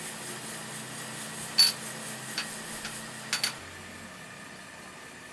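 A few sharp metallic clinks, with a ringing tone, over a steady low machine hum: the loudest about a second and a half in, two lighter ones after it, and a quick double clink past three seconds. The hum drops and changes soon after.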